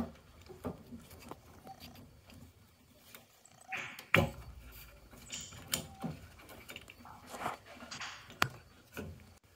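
Hands working parts inside a combi boiler's casing: scattered clicks and knocks of plastic and metal components, with a few short scraping rustles. The sharpest knocks come about four seconds in and again near the end.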